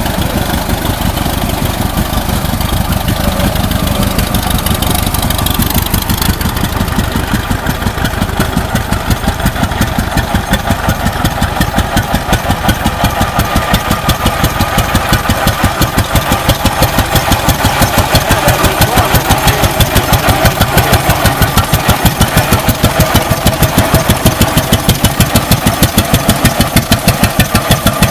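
Vintage tractor engines running. First comes an International 8-16 kerosene tractor's engine; then, from about seven seconds in, an old flywheel tractor's engine fires in slow, even beats, about four a second, that grow louder toward the end.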